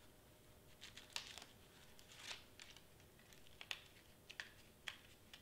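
Faint, scattered ticks and scratches of fingers picking at and peeling the paper backing off small foam adhesive squares stuck on cardstock.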